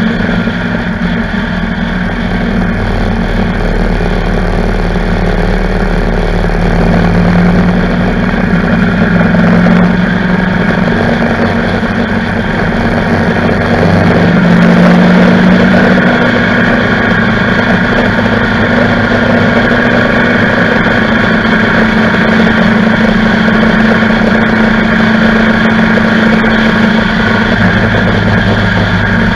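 Motorcycle engine running steadily at road speed, heard from a camera mounted on the bike, with wind and road noise over it. The engine note shifts in pitch a couple of times.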